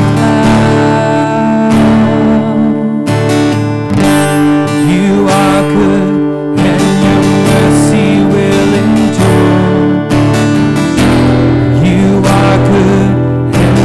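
Acoustic guitar strummed in full chords, with a man singing a worship song over it.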